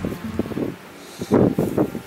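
Wind buffeting the microphone in uneven gusts, with a short lull about halfway through.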